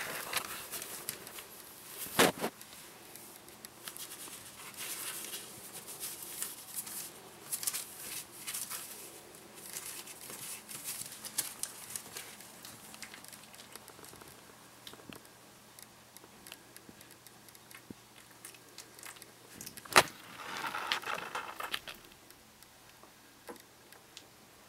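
Newspaper bedding crackling and rustling as one-week-old Finnish Lapphund puppies squirm and twitch in their sleep. The rustling is busier at first and then dies down, with two sharp loud clicks, one about two seconds in and one near the end.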